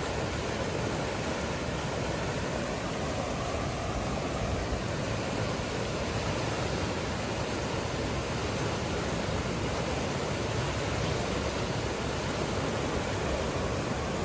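Bayou floodwater rushing in a fast current across a road: a steady, unbroken rush of water.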